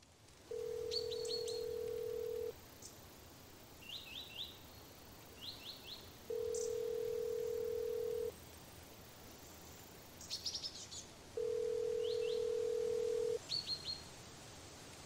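Telephone ringing tone: a steady single low tone held about two seconds, three times, about four seconds apart. Small birds chirp in short quick runs in between.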